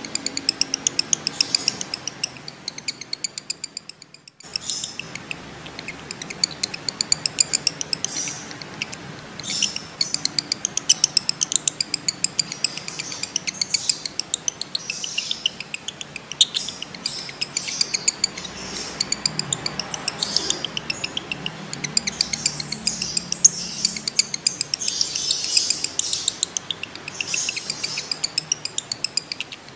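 Male lovebird in breeding condition chattering in long, rapid runs of sharp, high chirps: the 'ngekek' song. The calling breaks off briefly about four seconds in.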